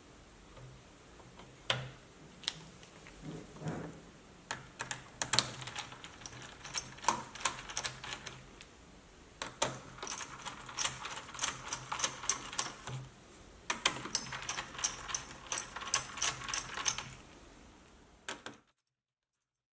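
Bursts of rapid, light clicks and taps, several a second, over a faint low hum; the sound cuts off abruptly near the end.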